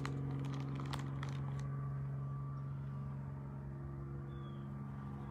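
A steady low machine hum, with a few light clicks in the first second and a half.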